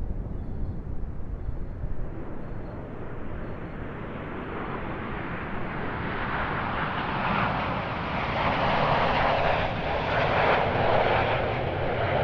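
Jet roar of Su-25 ground-attack aircraft flying over, growing from a distant rumble to its loudest about two-thirds of the way through.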